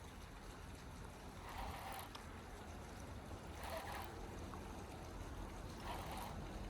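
Water sloshing softly, a swish that comes back about every two seconds, over a low steady rumble.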